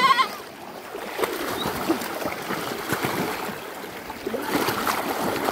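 Splashing and sloshing of people and goats wading through floodwater, with a goat's short wavering bleat right at the start.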